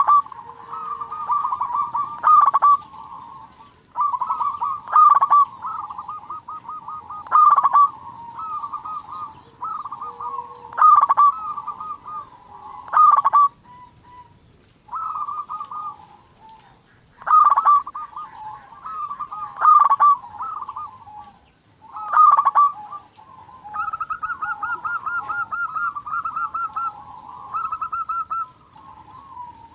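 Local zebra doves (perkutut) cooing: runs of quick staccato notes, with a louder call about every two and a half seconds and a fast, evenly pulsed run of notes near the end.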